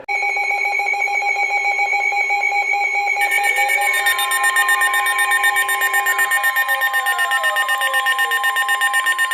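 Emergency alert tones from broadcast and weather-radio receivers, several sounding over one another. A rapidly pulsing multi-tone alarm starts at once. More tones and falling sweeps pile on about three seconds in, and a steady single alert tone joins about six seconds in.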